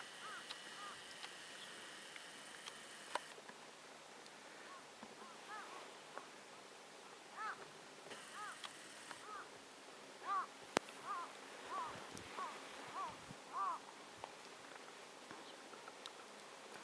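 Birds calling in a series of short, arched calls, about one or two a second, most of them in the second half. A faint steady high whine stops about three seconds in, and there are a couple of sharp clicks.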